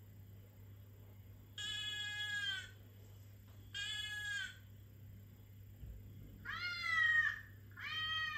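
Recorded cat meows played through a laptop's speaker: four long meows about a second apart, the last two bending in pitch.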